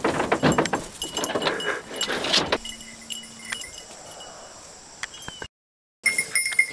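Beagles yelping and whining excitedly, with metallic jingling from their collars as they run. The yelping stops about two and a half seconds in, leaving fainter jingling, and the sound cuts out for half a second near the end before the jingling returns.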